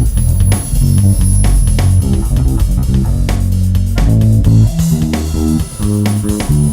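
Loose, improvised guitar solo: a continuous string of plucked notes, mostly low in pitch.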